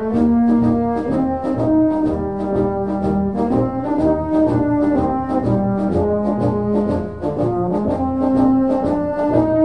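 Brass music: horns play a slow melody of held notes over a steady beat of light percussion ticks, about four a second.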